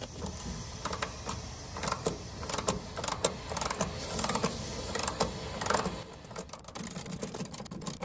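Ratchet wrench with an Allen bit clicking in short uneven runs as a condenser's suction-side service valve is wound fully open, letting the pre-charged refrigerant into the lines. The clicking thins out and grows fainter over the last couple of seconds.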